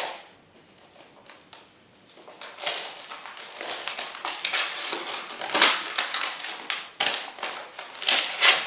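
Gift wrapping paper being torn and crumpled as a present is unwrapped: a run of irregular crackling rustles that starts after a couple of quiet seconds.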